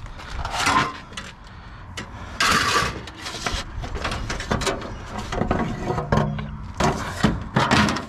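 Junk being handled and shifted in a dumpster: a quick run of knocks, clatters and short scrapes, with a longer scrape about two and a half seconds in.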